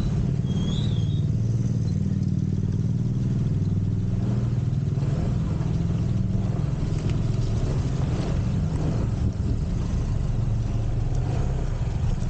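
Small motorcycle engine running steadily at low riding speed, heard from the rider's seat.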